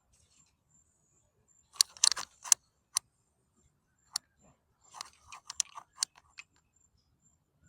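Faint scattered clicks and light rustles, in a small cluster about two seconds in and another about five seconds in, with no horn blast.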